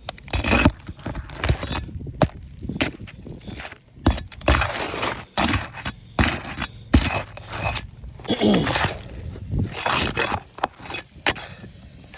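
Old 3-tab asphalt composition shingle being worked loose and pulled out: irregular crackling, scraping and clinking.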